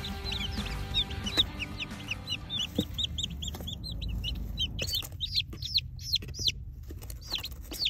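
A box of day-old chicks, Barred Plymouth Rock, Black Star and Sagitta pullets, peeping: many short high chirps, several a second, overlapping and growing louder about five seconds in, over a low rumble in the first half.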